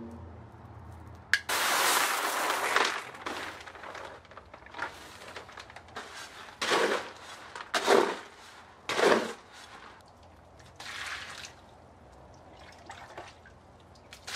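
Powdered cement poured onto gravel in a plastic mortar tub, a dry rush lasting just over a second, then several scraping strokes of a mortar hoe turning the dry gravel-and-cement mix for an exposed-aggregate floor finish.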